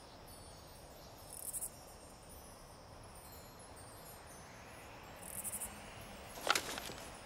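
Crickets chirping in the night ambience of a film soundtrack: two short high-pitched chirp pulses, about a second and a half in and again about five seconds in, over a faint steady hiss. A single brief sharp sound comes about six and a half seconds in, the loudest moment.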